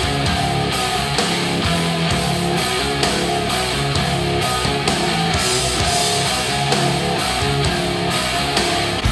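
Rock music played back through a pair of JBL One Series 104 compact studio monitors and picked up by a microphone in the room. It plays steadily with a regular drum beat.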